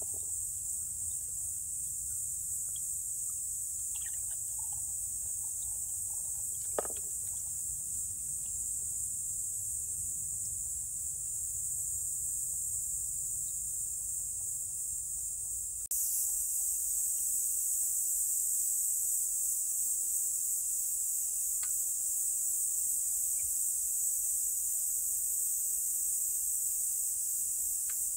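A steady, high-pitched chorus of crickets, which gets suddenly louder about halfway through, with a few faint clicks.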